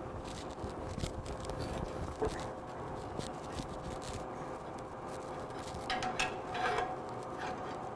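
Scattered light clicks and metal scraping from a blacksmith's tools working a hot iron bar as it is twisted, over a steady faint hum. The scraping is busiest a little after the middle.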